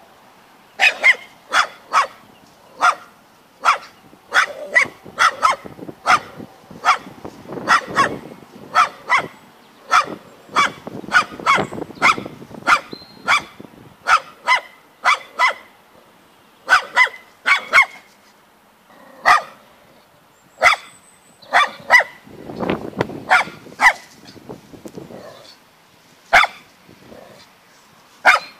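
A small white dog barking over and over at a scarecrow, short sharp barks one or two a second with a couple of short pauses.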